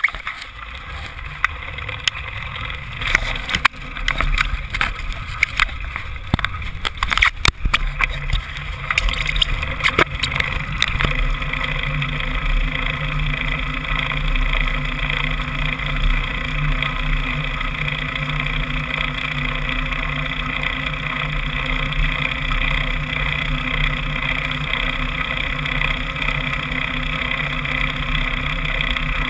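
Bicycle wheels ploughing through muddy floodwater covering a road. For about the first ten seconds there are irregular sharp splashes and knocks; after that a steady rushing hiss of water spray.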